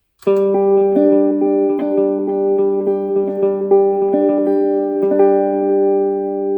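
Clean guitar tone through a Headrush pedalboard, being recorded into its looper. A run of picked notes rings out over a sustained low note, each new note overlapping the last, and fades slowly near the end.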